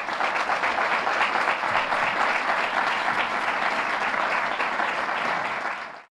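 Audience applauding steadily, a dense patter of many hands clapping, which cuts off abruptly near the end.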